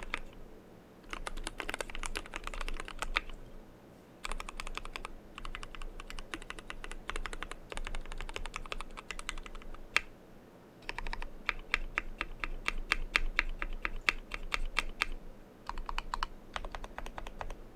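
Typing in quick runs on a custom 60% mechanical keyboard with lubed Zeal Tealios V2 linear switches, PBT keycaps and foam under the PCB, giving a steady patter of sharp keystrokes. The typing stops for about a second several times, with a single keystroke about ten seconds in.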